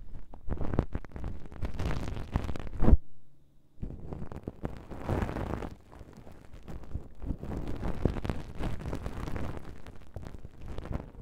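An ear-cleaning stick rubbing and scratching in an ear-shaped binaural microphone: close crackling and rustling in repeated passes, broken by a short silent pause about three seconds in.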